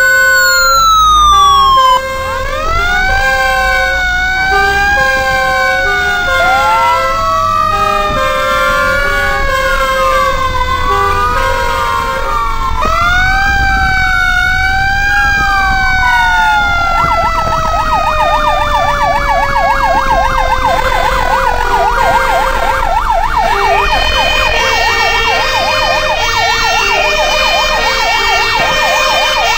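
Several emergency-vehicle sirens sounding together: slow wails rising and falling in pitch, and steady two-note hi-lo tones. A bit past halfway, a fast warbling yelp joins in.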